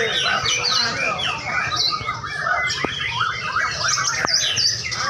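Chorus of many caged contest songbirds singing at once: a dense, continuous mix of overlapping whistles, chirps and squawks.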